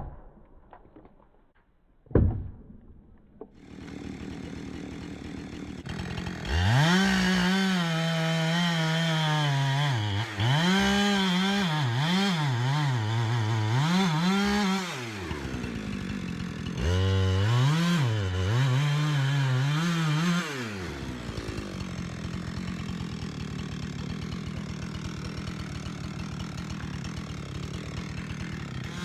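Two sharp knocks, then a Husqvarna 372 two-stroke chainsaw with a 32-inch bar running. From about six seconds in it revs high and dips again and again, as under load in a cut, with a short break near the middle. In the last third it settles to a steadier, quieter run.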